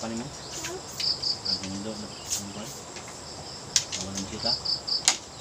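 Insects chirping: a steady high buzz with two runs of three quick chirps, about a second in and again near the end. Low voices and a couple of sharp clicks come through underneath.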